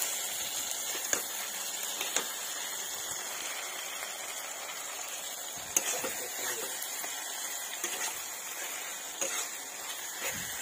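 Food frying in an iron kadai with a steady sizzle, and a metal spatula scraping and clacking against the pan as it is stirred, giving a handful of sharp knocks.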